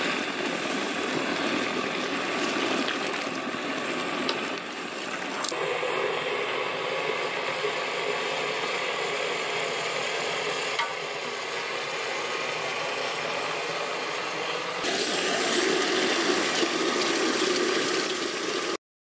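Chicken and green chilli paste frying in a large aluminium pot: a steady sizzle with a wooden spoon stirring through it. The sound shifts at a few edits and cuts off suddenly near the end.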